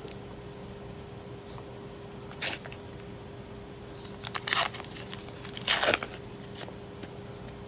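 Foil wrapper of a Star Wars: Unlimited booster pack being torn open and crinkled, in three short crackling bursts.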